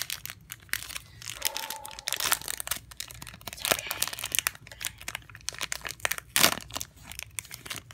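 Foil wrapper of a Panini Prizm basketball card pack being torn open and handled: irregular crinkling and crackling of the foil, loudest about six and a half seconds in.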